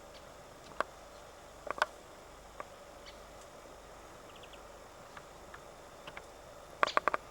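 Eurasian red squirrel making short, sharp hiccup-like clicks: single ones spaced about a second apart, then a quick run of four or five near the end.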